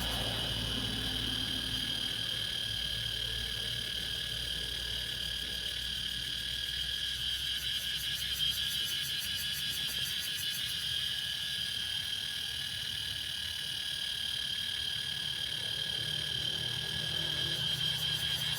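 Cicadas buzzing in a steady, unbroken high-pitched drone. A low hum sits underneath at the start, fades, and comes back near the end.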